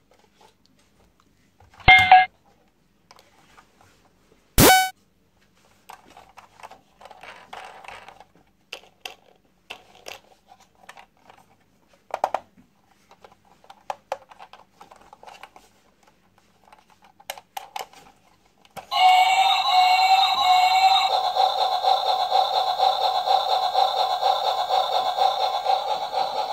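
Battery-powered plastic toy train: two short electronic chimes about two and five seconds in, faint plastic clicks as it is handled, then from about two-thirds of the way in it plays a loud, steady electronic tune with its lights on.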